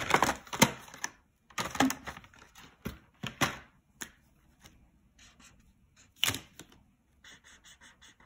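Cardboard marker box and plastic felt-tip markers handled on a tabletop: a run of separate clicks and knocks, the loudest about six seconds in. Near the end come a few quick, soft marker strokes on paper.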